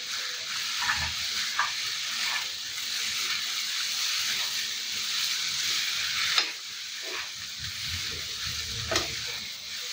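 Noodles, fried egg and potato sizzling in oil in a frying pan while they are stirred and tossed together, with a few short clicks of a spoon against the pan.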